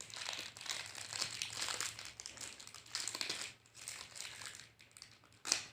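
Plastic packaging crinkling and rustling as a small camera-mount accessory is handled and unwrapped, with one sharp click near the end.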